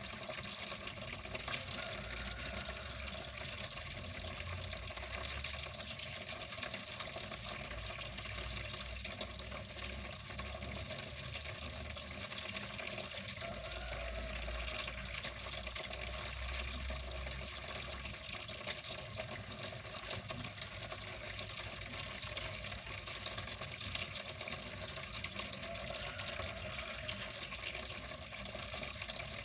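Water running and splashing steadily, with no change through the whole stretch.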